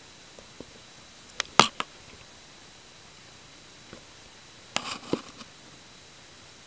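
A few short, sharp crackling rustles in two clusters: a loud one about one and a half seconds in and a second group about five seconds in, over a steady hiss.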